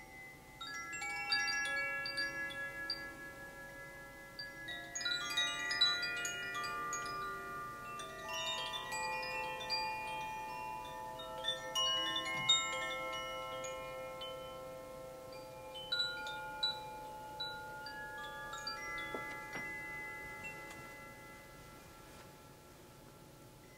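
A set of Zaphir chimes, each tuned to an eight-note scale, struck by their inner clappers as they swing: clusters of clear bell-like notes every few seconds, ringing on and overlapping, fading out near the end.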